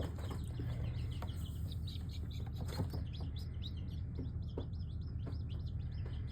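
A group of young chickens peeping: many short, high chirps in quick succession, which the owner takes for white Leghorn roosters. A steady low hum runs underneath.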